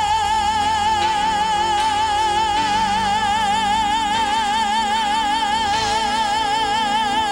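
A female singer holding one long, high belted note with a wide, even vibrato, over a live rock band of drums, guitar, keyboards and bass.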